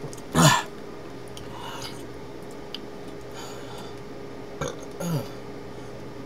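A woman burping loudly about half a second in, then a shorter, weaker burp near five seconds in, each falling in pitch.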